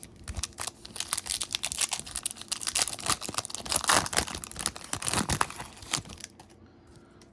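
Foil wrapper of a 2020 Topps Stadium Club trading-card pack being torn open and crinkled in the hands, a dense crackling that stops about a second before the end.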